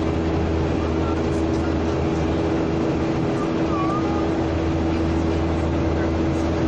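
Airliner cabin noise in flight: a steady, even drone of engines and airflow with a constant low hum and a steady tone.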